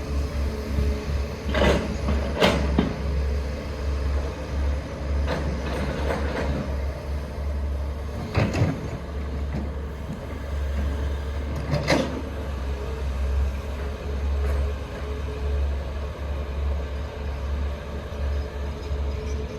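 Heavy diesel machinery engine running steadily with a low rumble, broken by several sharp metallic clanks, the loudest about two, eight and a half and twelve seconds in.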